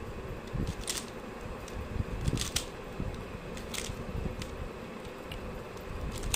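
Plastic Pyraminx puzzle being twisted by hand: irregular clicks and clacks of its pieces turning, with a few sharper clacks among them.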